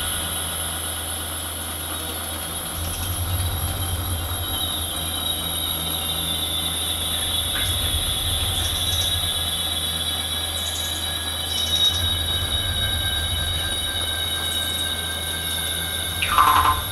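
Electronic score of drones: sustained high whining tones over a steady low hum, with a few soft blips scattered through. A short, louder burst of sharper sound comes near the end.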